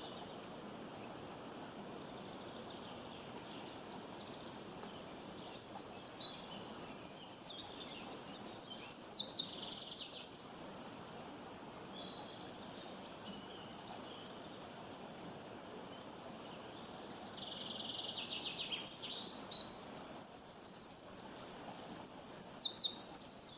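A songbird singing two long bouts of rapid high-pitched trills and chirps, each about six seconds, separated by a pause of a few seconds with only faint background noise.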